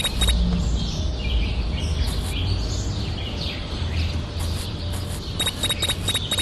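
Birds chirping in short rapid trills over a steady low rumble, with the same chirping phrase coming back near the end.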